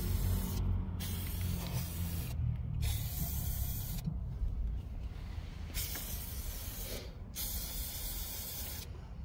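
Aerosol spray can hissing in about five short bursts, each roughly a second long, as silicone release-agent spray is applied to stabilizer-link rubber bushings that squeak in cold weather. A steady low rumble runs underneath.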